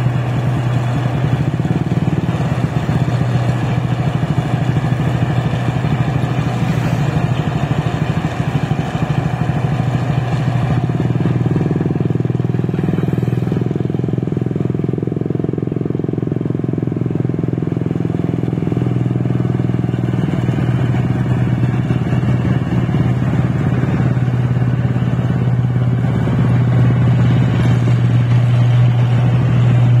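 Rice combine harvester's engine and threshing machinery running steadily as it cuts and threshes the paddy crop: a continuous loud drone with a strong low hum.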